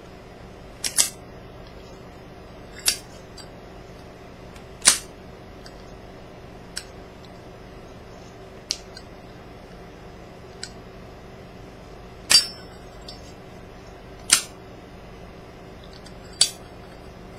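Zippo lighter's hinged metal lid snapping open and shut, a sharp metallic click about every two seconds with some clicks louder than others, as the lighter is flipped and closed over and over in a trick.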